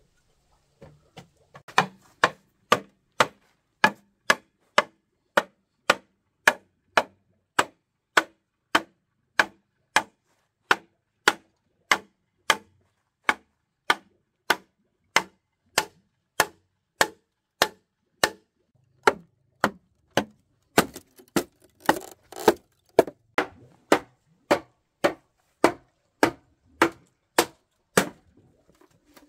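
Wood being chopped with a blade in a steady run of sharp blows, about three every two seconds. A brief rustle or scrape sounds between blows about two-thirds of the way through.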